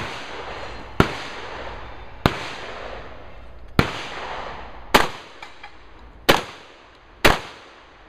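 Benelli M2 semi-automatic shotgun firing seven shots in an uneven string, roughly a second apart, each blast trailing off in a long echo.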